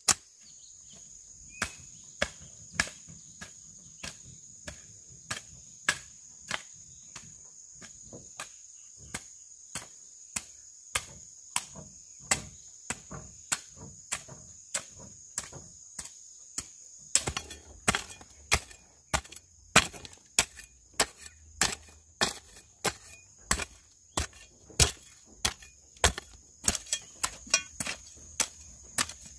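Metal hoe blade chopping repeatedly into dry, stony soil, roughly one to two strikes a second, coming faster in the second half. A steady high insect drone goes on behind it.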